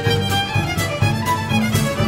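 Lively Ukrainian folk dance music led by a fiddle, over a quick steady beat.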